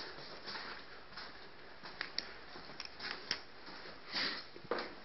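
Faint handling noise from a handheld camera being carried through a quiet room: soft rustling, a few light clicks, and a brief louder hiss about four seconds in.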